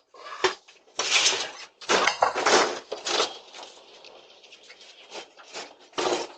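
Bursts of rustling and clattering picked up by a doorbell camera's microphone: several loud noisy knocks and scrapes in the first three seconds, then a low rattling, and one more burst near the end.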